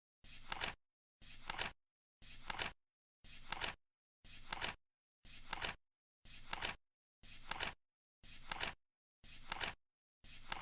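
Flip-clock ticking sound effect, one flip each second, eleven in all. Each is a short rustle that builds to a sharp click.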